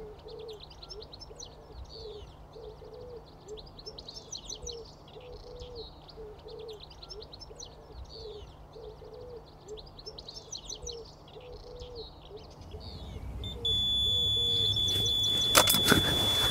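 Songbirds twittering, with a low call repeated about once a second beneath them. About fourteen seconds in, an electronic bite alarm on the rods sounds one continuous high-pitched tone, signalling a fish running with the bait. A few sharp knocks follow near the end.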